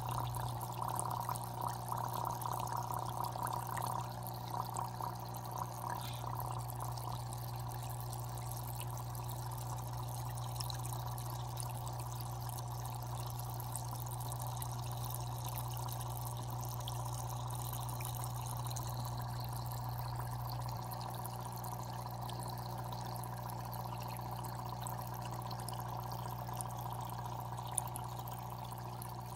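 Aquarium water trickling and splashing steadily over a steady low hum, busier in the first few seconds; a single sharp click near the end.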